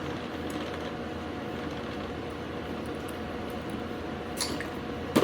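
Faint ticks and scrapes of a steel Allen key and pliers working a set screw inside a hydraulic cable cutter head, over a steady background hum. A sharp metallic clack comes right at the end.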